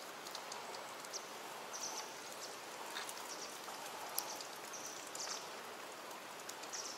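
Faint outdoor water ambience: a small stream trickling over rock, with scattered light ticks and a few short high chirps.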